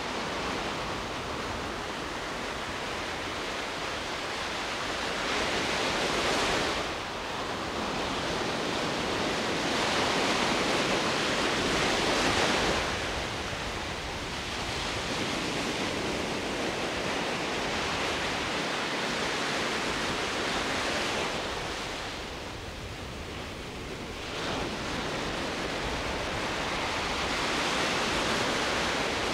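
Sea surf: a steady rush of waves breaking and washing in, swelling and easing every few seconds.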